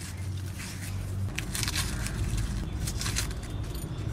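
Dry onion skin crackling and scraping in short, irregular bursts as a red onion is trimmed and peeled by hand against an upright boti blade, over a low steady rumble.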